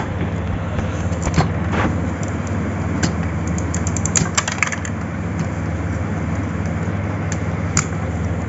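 Small sharp plastic clicks and taps from hands working the print carriage and its cable inside an opened HP Ink Advantage 4515 inkjet printer, with a quick run of clicks about four seconds in. A steady low hum runs underneath.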